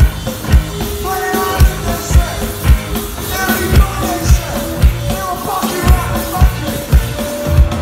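Punk rock band playing live through a PA: a steady kick drum beat about twice a second under guitars and bass, with sung vocals coming in about a second in.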